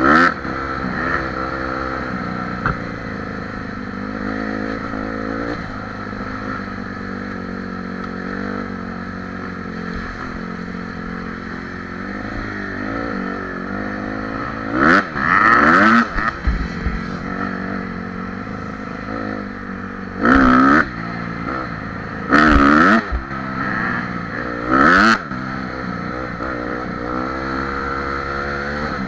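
Dirt bike engine running while riding, its pitch rising and falling with the throttle. Several loud bursts of noise, each about a second long, come in the second half.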